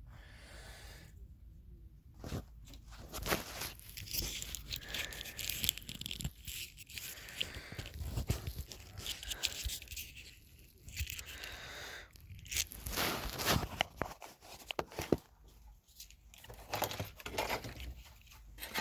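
Irregular clicks and scraping of small plastic connector parts being worked and popped out of a car body control module's wiring plug by hand.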